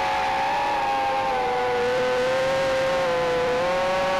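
Micro quadcopter's electric motors and propellers whining steadily in flight, the pitch wavering slightly up and down as the throttle changes.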